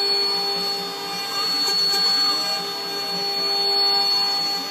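Chinese 6040 CNC router at work on a finishing pass: the spindle runs with a steady high whine over a noisy hiss while a 1/8" carbide ball-nose bit cuts. The stepper-driven axes add a few short rising and falling tones about two seconds in.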